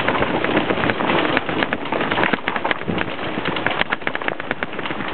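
Mountain bike rolling fast down a dirt trail: a steady rush of tires and wind with rapid, irregular clicks and rattles as the bike clatters over rough ground.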